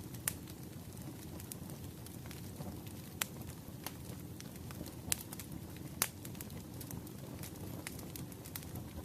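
Wood fire burning: a steady low rumble of flames with irregular sharp crackles and pops from the firewood, a few louder snaps standing out.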